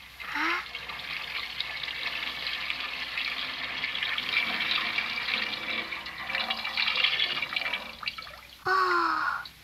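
Steady rushing water sound, with a short falling cry about half a second in and a louder one near the end.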